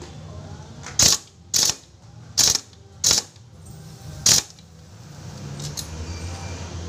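Impact wrench hammering a nut on the clutch side of a Kawasaki Rouser 180 engine, fired in five short bursts over about three seconds.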